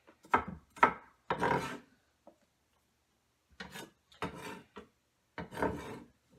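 Short scraping and rubbing strokes across a wooden cutting board, as a knife blade and hand sweep over the board. They come in two runs of three or four strokes, with a pause of about two seconds between.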